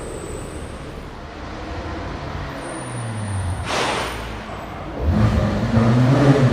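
Supercar engine sound: a passing engine fades away, a short sharp burst of noise cracks out a little past the middle, then an engine comes in louder and holds a steady, rich note near the end.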